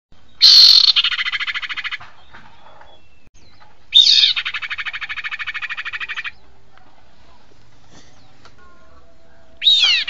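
Recorded female iora (sirpu) calls played as a bird-catching lure. There are three calls, each a sharp downward-sweeping note followed by a rapid trill of about two seconds; the last starts near the end.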